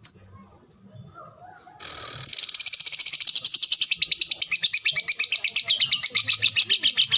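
Lovebird giving one short chirp, then from about two seconds in a long, fast chattering trill of high notes, about ten a second, that keeps going: the sustained chatter that lovebird keepers call ngekek.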